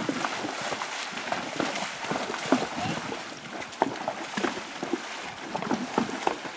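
A pack horse and a person wading across a shallow, stony river: irregular splashes from hooves and legs several times a second over the rush of the moving water.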